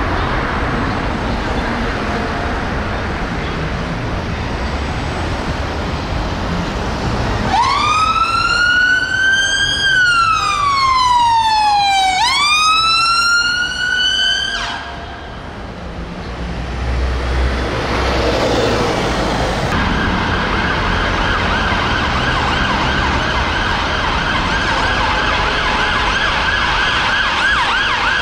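Road traffic noise, then an emergency vehicle siren wailing in slow rises and falls for about seven seconds before it cuts off. Toward the end a Metropolitan Police BMW 530d's siren sounds in a fast, rapidly warbling yelp over passing traffic.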